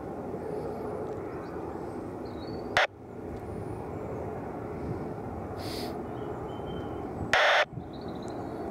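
Steady rumble of a jet airliner's engines, with faint bird chirps above it. Two short, loud bursts of airband radio squelch cut in, about three seconds in and again near the end.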